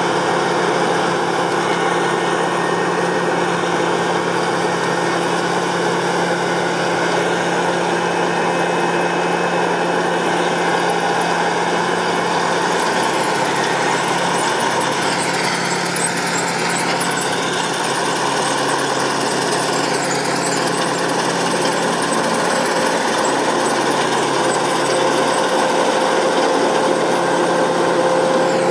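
Massey Ferguson 7360 PL Beta Paralevel combine harvester running steadily while harvesting, its engine and threshing machinery making a constant drone. The sound dips and rises briefly around the middle.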